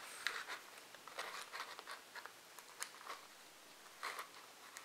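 Faint, scattered scratches and light clicks of tweezers and fingers handling the thin voice-coil lead wires on a paper speaker cone.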